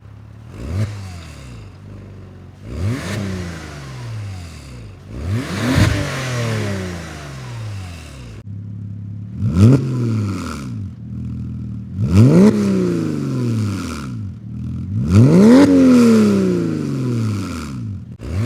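Porsche 986 Boxster S flat-six revved from idle about six times through its exhaust. Each blip climbs quickly and falls back more slowly to a steady idle.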